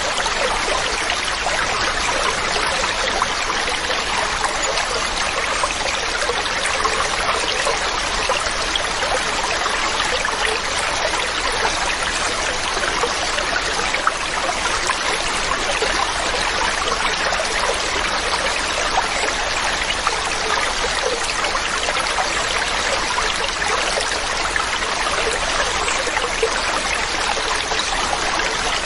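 Waterfall: water falling and splashing with a steady, unbroken rush.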